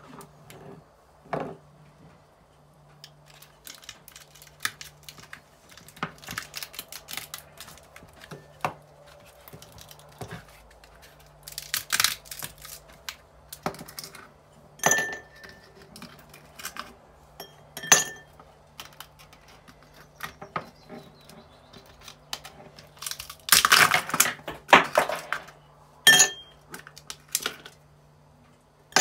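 Plastic ice cube tray being twisted and cracked, the cubes crackling loose, with three sharp ringing clinks of ice cubes dropping into a drinking glass. A steady low hum runs underneath.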